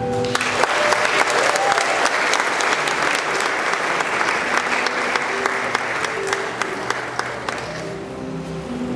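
Audience applauding: a dense patter of many hands clapping that starts just after the beginning and tapers off about eight seconds in.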